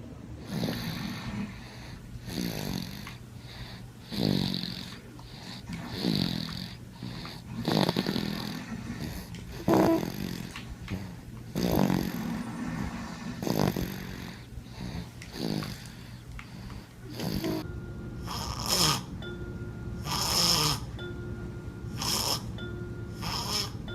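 A sleeping baby snoring, one snore roughly every two seconds.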